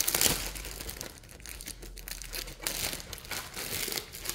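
Packaging crinkling and rustling as the product is handled and unwrapped, in irregular crackling bursts with the loudest at the very start.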